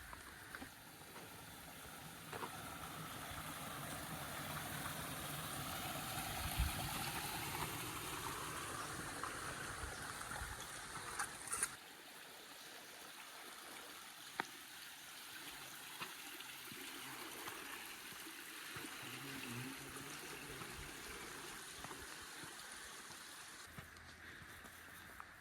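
Running water trickling and gurgling, with a few small knocks; the sound changes abruptly about halfway through.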